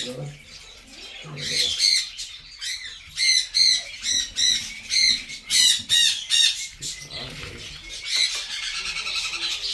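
Young blue-and-gold macaws squawking: a run of short, harsh calls, about two a second, that dies down about two-thirds in, with a couple of weaker calls near the end.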